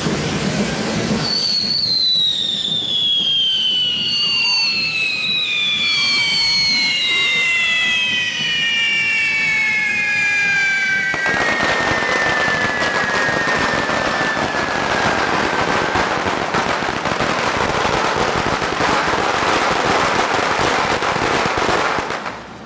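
Handheld fireworks spraying sparks with a continuous hissing crackle. From about a second in, several whistling fireworks sound together, each one's pitch falling slowly over many seconds, and after that the dense fizzing crackle carries on.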